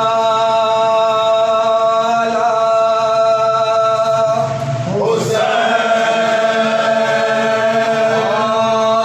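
Men's voices chanting a noha, a Shia lament, unaccompanied. They hold long, drawn-out notes that change pitch every two to three seconds, with a short upward slide about five seconds in.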